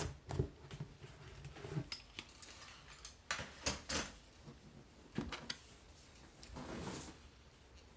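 Lock pick and tension wrench working in a padlock's core: scattered small metallic clicks and taps, with a brief rubbing scrape near the end.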